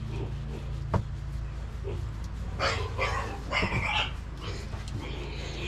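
Tractor engine idling with a steady low hum. A single sharp knock comes about a second in, and a few short animal cries come between about two and a half and four seconds in.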